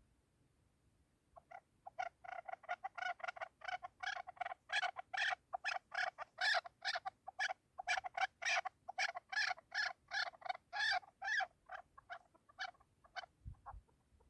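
Chukar partridge calling: a long series of short repeated clucking notes, about three to four a second. They start about a second and a half in, grow louder, then thin out and fade near the end.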